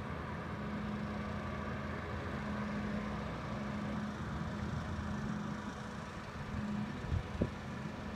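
ALCO S1 diesel switcher locomotive idling with a steady low hum. Two short knocks come about seven seconds in.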